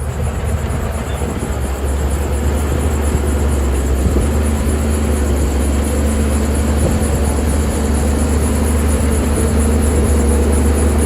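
Heavy diesel earth-moving machinery running steadily with a deep engine rumble, growing gradually louder.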